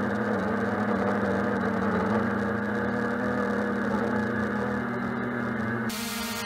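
Xiaomi Mi Drone quadcopter's motors and propellers humming steadily, picked up by the camera it carries, with a rush of air. Near the end the sound switches abruptly to the drone hovering heard from the ground, a buzzing whine made of several steady tones.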